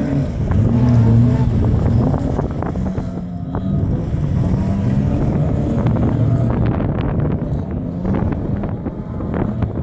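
Folkrace cars' engines running hard around a dirt track, among them an Opel Corsa B, with the engine notes rising and falling as the drivers accelerate and lift. Wind is buffeting the microphone.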